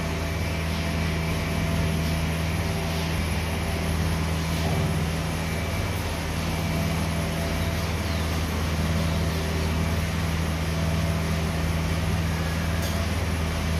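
Steady machine hum: a low drone under an even rushing noise, with one light click near the end.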